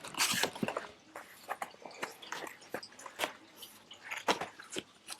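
Handling of a boxed broom and mop set being unpacked: a brief burst of rustling packaging at the start, then scattered light clicks and taps of plastic parts.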